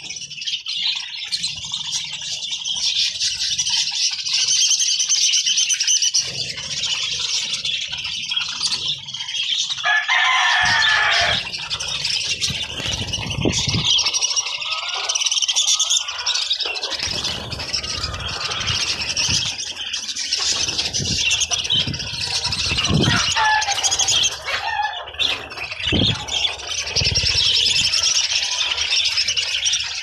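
A flock of budgerigars chattering continuously, many birds at once, with a louder, lower burst of calling about ten seconds in and a few low thumps in the second half.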